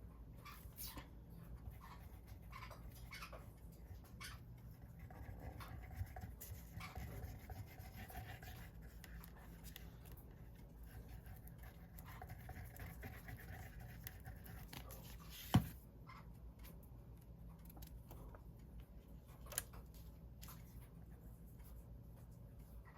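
Faint rustling, scratching and light tapping of paper and card being handled and pressed down on a craft table, with one sharp tap about two-thirds of the way through and a softer one a few seconds later.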